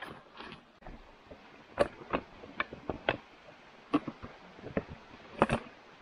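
A folding camp table being put together: a string of irregular clicks and clacks as its parts snap and knock into place, the loudest about two seconds in and near the end.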